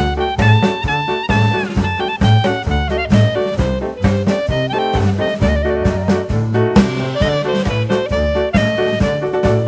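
Background music: upbeat swing-style jazz with saxophone and brass over a steady walking bass beat.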